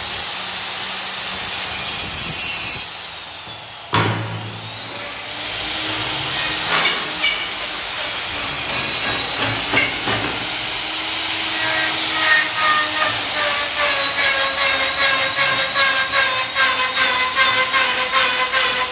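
Electric power tools working teak. A circular saw whines through a plank for the first few seconds and cuts off sharply. Then a handheld electric router spins up to a steady high whine as it is guided along a plank, with a fast, even chatter in the second half.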